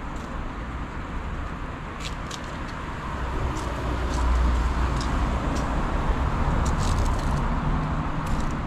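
Street traffic: a car's low engine rumble that swells about halfway through as it comes closer, with scattered light clicks over it.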